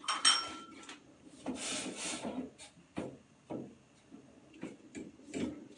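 A metal ladle clinks against a stainless steel pot with a brief ring, then scrapes and taps around the pot as thick congee is stirred.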